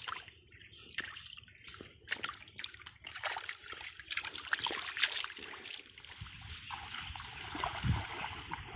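Hands splashing and sloshing in shallow muddy water while groping in a hole for catfish: irregular short splashes, giving way to a steadier trickling from about six seconds in.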